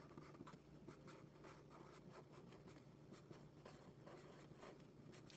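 Faint scratching of a pen writing in many short strokes, over a low steady hum.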